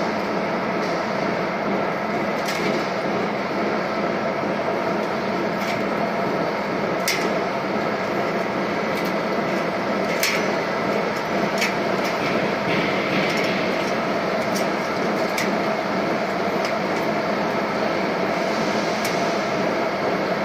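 Machinery running steadily with a dense hum, with sharp clicks every few seconds at an uneven pace.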